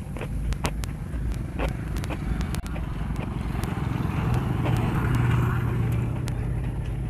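A motor vehicle's engine running steadily close by, growing louder toward the middle and stopping abruptly at the end. Over it come crisp clicks and crunches from close-up chewing of raw food.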